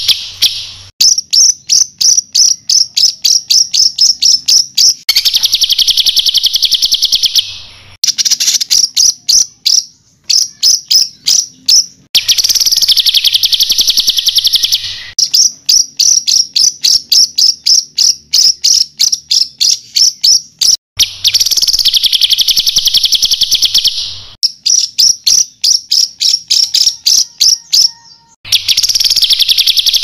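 Loud songbird masteran (training song) recording: runs of sharp, rapidly repeated high notes, about five a second, alternating four times with dense, buzzy high trills of two to three seconds each.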